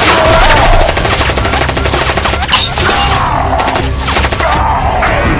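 Rapid machine-gun fire, a dense run of shots, mixed over background music.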